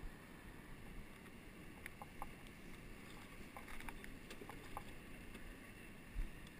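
Quiet lapping and dripping of water around an oar-rowed raft drifting on flat river water, with a few small clicks and a low thump near the end.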